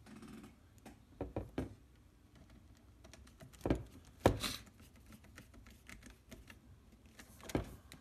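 Sharp clicks and knocks of a screwdriver and hands against the DJI Phantom 4 drone's plastic shell as its body screws are put back, with fainter ticks between. A quick cluster of knocks comes a little over a second in, the two loudest just before and after the four-second mark, and one more near the end.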